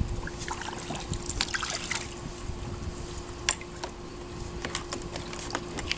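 Huskies' muzzles dipping and lapping in the shallow water of a plastic kiddie pool as they go after live fish: irregular small splashes, trickles and drips.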